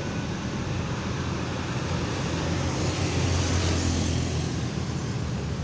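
Road traffic noise: a vehicle engine's low rumble with road noise, growing a little louder about three seconds in. No horn is heard.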